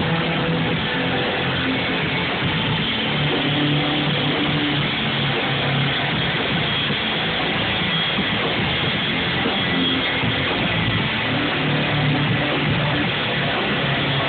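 A band playing a rock song live, with guitar and keyboards together in a loud, dense, continuous mix, recorded through a phone's microphone.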